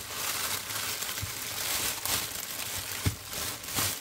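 Plastic mailer bag crinkling and tearing as it is pulled open by hand, with a few sharper crackles.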